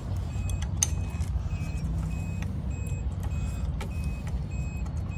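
Diesel engine being cranked over on its starter, a steady low rumble, not yet running on its own; fuel has just reached the injection pump. A short high beep repeats about twice a second behind it.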